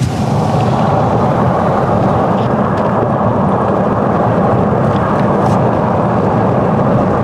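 Steady loud rumble of a vehicle being driven: engine and road noise with no break or change.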